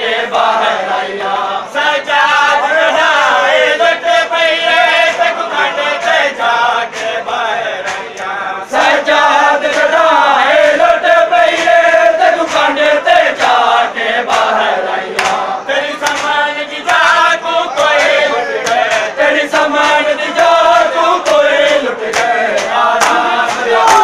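Massed men's voices chanting a mourning lament in unison. Sharp slaps of open hands beating bare chests (matam) come again and again through the chant.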